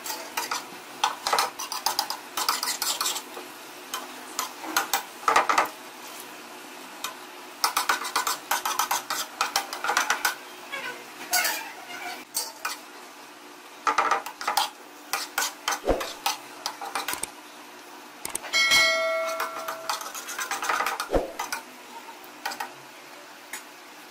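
Metal spatula scraping, tapping and clattering against a flat iron tawa as cooked chicken is turned and broken apart on it, in irregular bursts over a faint sizzle. A little after three-quarters of the way through, one metallic clang rings on for about a second.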